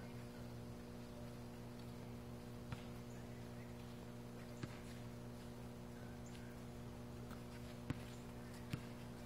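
A few scattered knocks of a basketball bouncing on an outdoor court, over a steady low hum.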